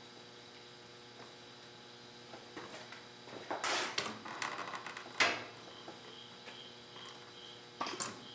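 Old engine coolant starting to run out of a motorcycle's water-pump drain hole into a plastic drain pan, the flow freed by taking off the radiator cap: a brief splashing rush about three and a half seconds in, a couple of sharp knocks, then a faint, evenly repeating patter.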